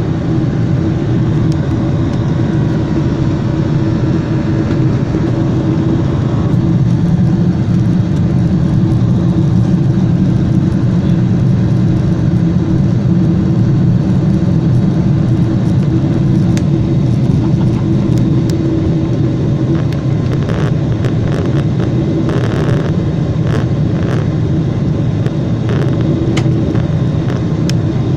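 Steady engine and airflow noise inside a Boeing 747 passenger cabin in flight: a constant deep rumble with a steady hum over it. A few brief clicks or rattles come about two-thirds of the way through.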